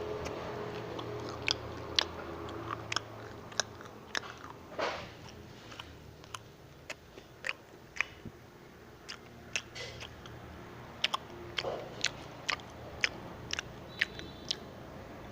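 Close-up crunching of crispy fried sweet potato being bitten and chewed, in many sharp, irregular crunches.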